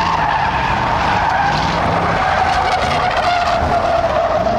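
Several Ford Crown Victoria stock cars' V8 engines running together through a turn of a dirt oval. The engine note drones and falls slowly in pitch.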